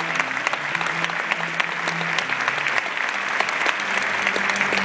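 Large theatre audience applauding steadily, a dense clatter of many hands clapping.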